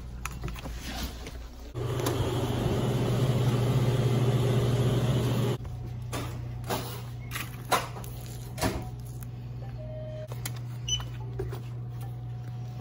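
Shop interior ambience: a steady low electrical hum throughout, swelling into a louder rushing noise for about four seconds, then scattered light knocks and clicks of goods being handled.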